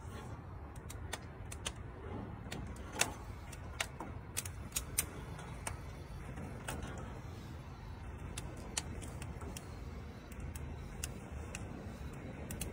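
Irregular sharp clicks and light clinks while a gas grill is lit with a long lighter, most of them in the first five seconds, over a low steady rumble.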